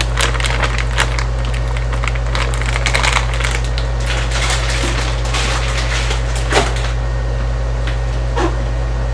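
Kitchen handling noises: rustling and light clicks for the first few seconds, then two knocks, one a little past halfway and one near the end, over a steady low hum.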